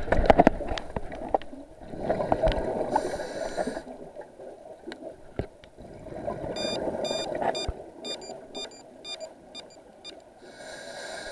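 Muffled underwater sound from an action camera in a waterproof housing on a pole: water rushing past as it is moved, with a few hard knocks at the start and scattered clicks. About two-thirds of the way through comes a run of short, high clicking tones.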